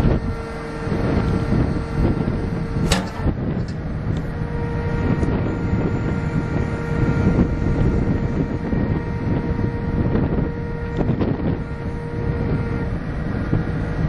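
New Holland LB110 backhoe's 4.5-litre four-cylinder turbo diesel engine running, with a steady whine over its rumble and a sharp click about three seconds in.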